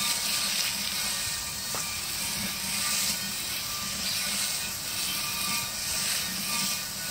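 Garden hose spray nozzle jetting water onto a steel wheel rim, rinsing off oxalic acid: a steady hiss and splatter that swells and dips as the jet moves over the rim.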